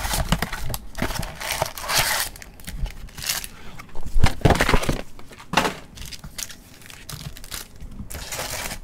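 A cardboard trading-card box being opened and its foil-wrapped card packs slid out and handled, giving irregular rustling and crinkling, with a couple of sharp knocks midway as the packs are set down on the table.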